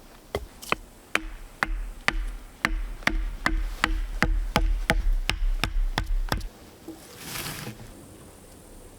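A hand tool striking wood repeatedly, about two blows a second, each with a short dull ring, stopping about two-thirds of the way through. A brief scraping rustle follows.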